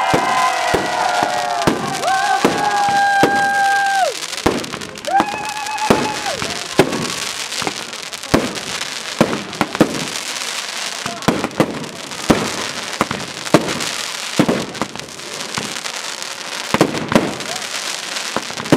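Fireworks display: a steady run of sharp bangs from bursting shells, with crackling stars between them. Several pitched whistles sound together in the first few seconds and again about five seconds in.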